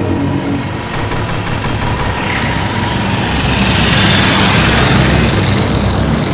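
Battle sound effects: a quick burst of machine-gun fire about a second in, then the rushing, rumbling noise of aircraft swelling to a peak and easing off.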